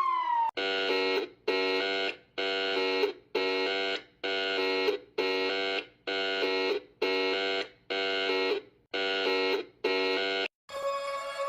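Emergency warning alarm sounding a pulsed tone: about eleven short blasts, roughly one a second, each tailing off, stopping near the end. A falling siren tone dies away just before the blasts begin.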